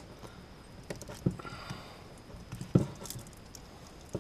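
Side cutters snipping and prying at a cable's rubber outer boot and braiding: a few sharp clicks and snips with faint rustling between, the sharpest about two-thirds of the way in.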